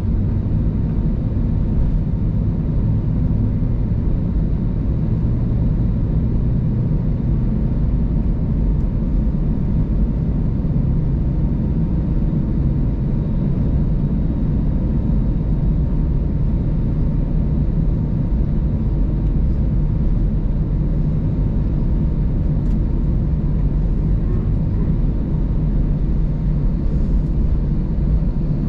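Airbus A320 cabin noise while taxiing: a steady low rumble and hum from the engines and airframe, with a faint steady whine above it.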